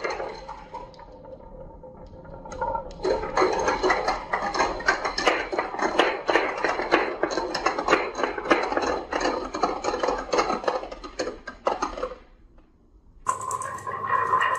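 Many marbles rolling and clattering down a wooden marble run: a dense stream of rapid clicks and knocks that dies away about twelve seconds in. Near the end a steady ringing tone starts along with more clatter.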